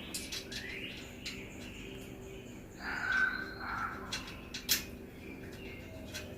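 Scattered sharp metallic clicks from lock nuts being threaded by hand onto the seat-bracket bolts of a mower, with a few short squeaky chirps, over a steady low hum.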